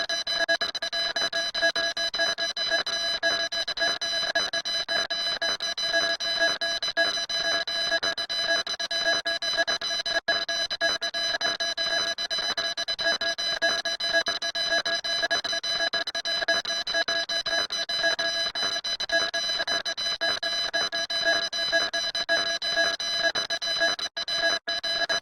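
Continuous electronic alarm-like buzzing tone, steady in pitch with a fast flutter, cutting out for an instant about ten seconds in and twice near the end.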